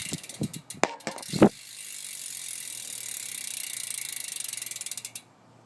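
Rear hub of a BMX bike clicking fast as the spun rear wheel freewheels, after a few knocks while the wheel is handled; the ticking cuts off about five seconds in. The hub is an unsealed one that has been degreased, and its clicking sounds pretty good.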